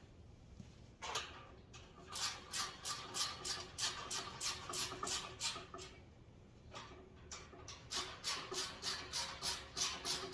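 Ratcheting screwdriver clicking in quick, even runs of about three or four clicks a second as the rack's bolts are run down snug. There are two runs, with a pause of about two seconds between, and a single knock about a second in.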